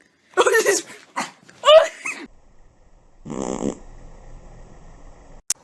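A dog yelping and barking in two loud bursts with bending pitch in the first two seconds, then a short low buzzing sound about three seconds in and a sharp click near the end.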